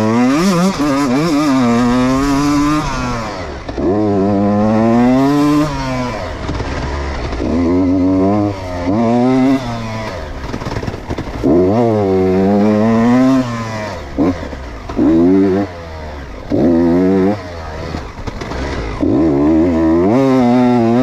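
Two-stroke engine of a 125 Beta RR Racing enduro bike, revving up and falling back in about eight bursts as the throttle is opened and shut over and over while riding the track.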